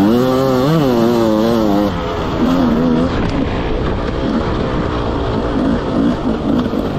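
Enduro dirt bike engine under the rider, revving up and down in quick waves for about the first two seconds, then running lower and choppier on and off the throttle.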